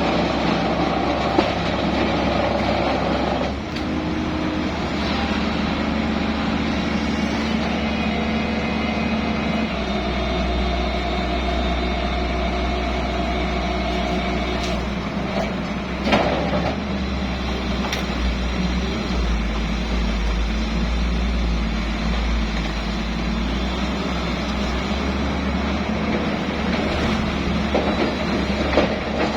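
Heavy diesel construction machinery, most likely the excavator, running steadily for the whole stretch, its pitch and tones shifting a few times, with a few sharp knocks around the middle.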